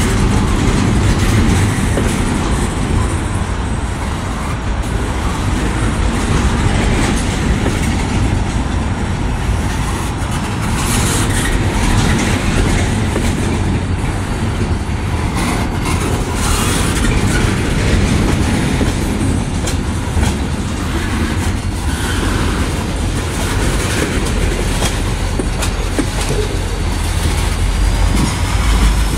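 Freight train rolling past close by, its car wheels clattering and knocking on the rails. In the last few seconds a low diesel locomotive engine drone builds as the locomotives draw near.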